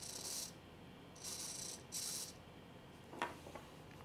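Small hobby servo motor giving short, faint, high-pitched whirring bursts as its arm follows a potentiometer knob being turned by hand: one burst at the start and two more a second or so later. A light knock follows about three seconds in.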